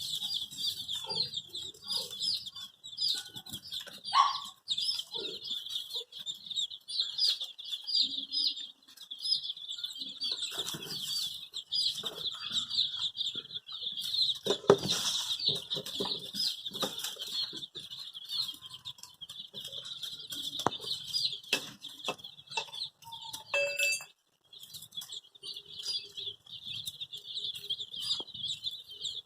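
Baby chicks peeping nonstop, many short high cheeps overlapping one another, with occasional soft knocks and scuffles beneath.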